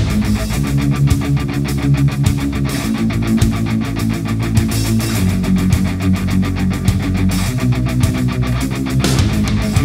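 Heavy rock music with electric guitar over a fast, steady beat.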